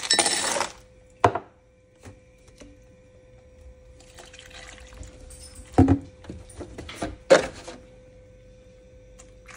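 Diced potatoes tipped from a cutting board into the soup pot, a short loud rush at the start, followed by several sharp knocks and clatters of utensils against the pot and board.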